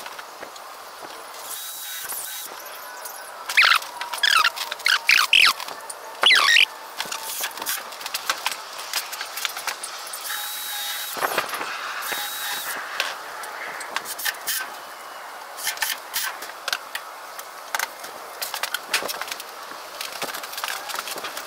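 Wood being handled: scattered knocks and clatters, with a run of loud squeaks about four to seven seconds in.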